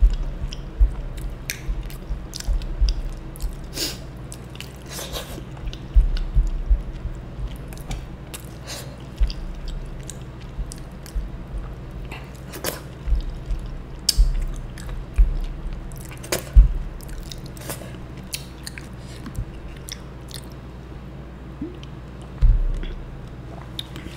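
Close-miked wet chewing and mouth sounds of a person eating soft rice and curry by hand, with short clicks and smacks throughout and a few soft low knocks as fingers scoop food from the tray.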